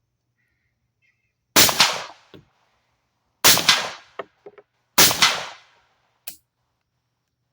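Bear Creek Arsenal 10mm semi-automatic AR-style pistol firing three single shots of 180-grain full-metal-jacket ammunition, spaced about a second and a half to two seconds apart. Each shot is followed a split second later by a second, weaker report. A small click comes near the end.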